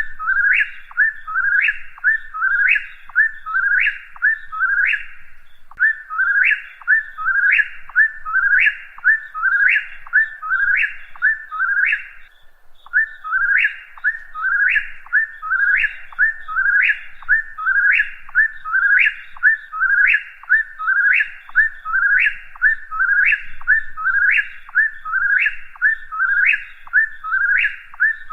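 Whip-poor-will singing its three-note 'whip-poor-will' song, repeated over and over about once a second, with a brief pause about twelve seconds in.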